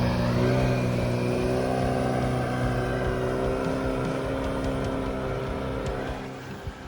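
Boat's outboard motor running at a steady pitch, then easing off and growing quieter about six seconds in.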